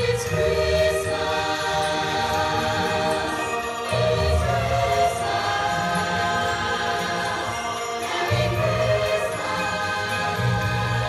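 A choir singing a song with accompaniment, heard from the audience seats of a reverberant hall.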